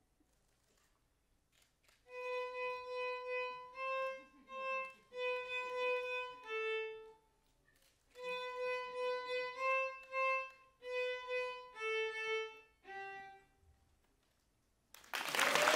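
Solo violin playing a simple tune in two short phrases, mostly repeated held notes on a few pitches. Then loud applause from the audience breaks out near the end.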